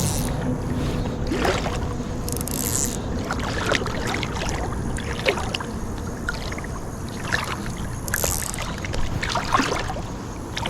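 Steady rush of flowing river water with wind buffeting the microphone, broken by scattered small splashes and a couple of brief hissing bursts.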